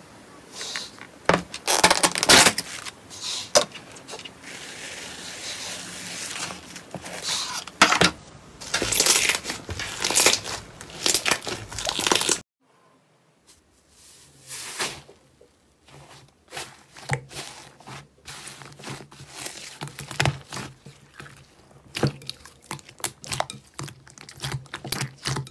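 Hands squeezing and kneading slime close to the microphone: a run of irregular, sharp squishes and pops. The sound breaks off briefly about halfway through, then goes on more quietly with a second slime.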